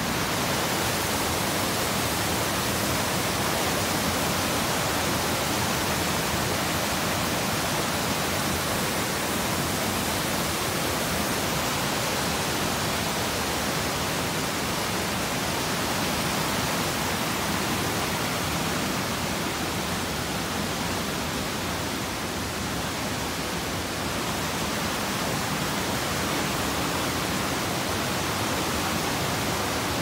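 Mountain stream rushing over rocks as white water, a steady hiss without a break.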